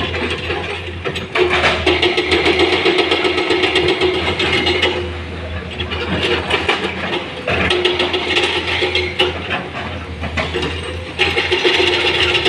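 Heavy diesel machinery running, with dense rapid rattling and clatter. It grows louder in several surges lasting a few seconds each.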